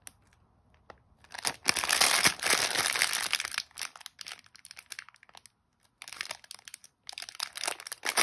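Clear plastic bag full of costume jewellery crinkling as it is handled and turned over, in bouts starting about a second in, with short pauses.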